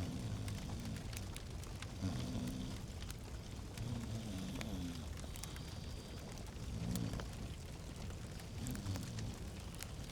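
Fireplace fire crackling, with scattered sharp pops over a steady low rumble.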